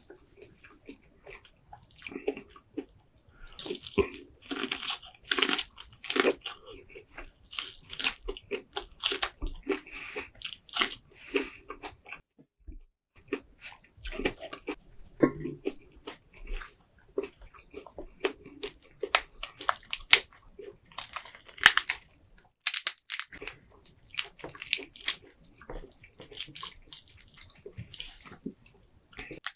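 Close-miked eating of a seafood boil: a run of bites and chewing with wet, crackly mouth sounds, pausing briefly twice.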